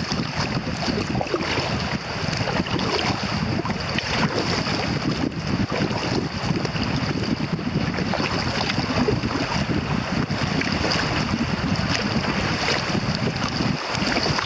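Steady rush of river water through riffles around a moving kayak, with wind buffeting the microphone of the camera on the kayak's deck.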